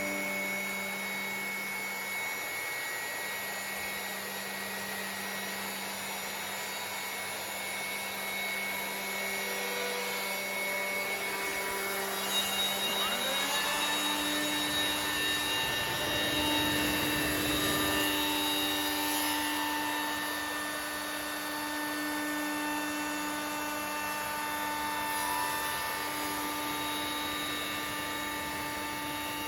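CNC router spindle running with a steady whine of several tones during a test cut on a wooden slab. About 13 seconds in, it ramps up in pitch and then holds steady at the higher speed.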